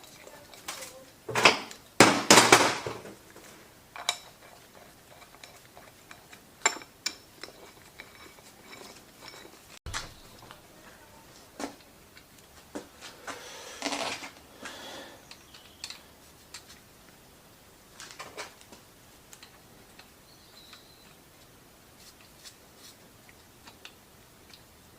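Metal tools and engine parts clinking and clattering as they are handled and set down, with a cluster of loud clanks about two seconds in and a brief rattling clatter around the middle.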